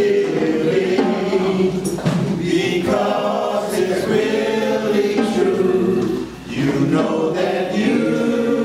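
Church choir singing a gospel song, several voices together holding long notes, with a short breath-like dip about six and a half seconds in.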